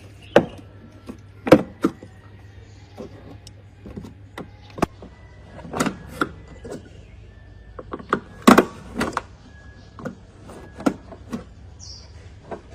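Irregular sharp knocks and clinks of metal parts and tools being handled, some ringing briefly, the loudest about a second and a half in and again past eight seconds. A low steady hum runs underneath and fades out about five seconds in.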